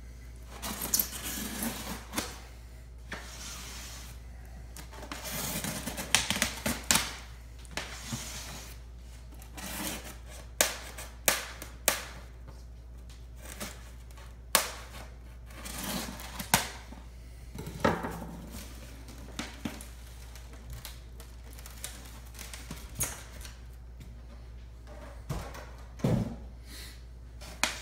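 A polystyrene foam shipping box being opened by hand: a blade slits the tape along the lid seam, and the lid is worked off, with irregular scraping, creaking foam and scattered sharp knocks.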